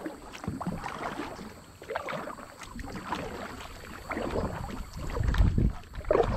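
Kayak paddle strokes: the blades dip and splash in the water on alternate sides, with water slapping the hull. A heavier low rumble comes in near the end.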